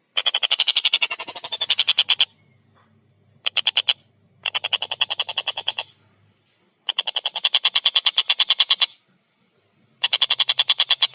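Collared kingfisher (tengkek buto) giving its rapid, ringing 'kek-kek-kek' chatter in repeated bouts of about seven notes a second. A long bout opens, two short bursts follow near the middle, and two more long runs come near the end.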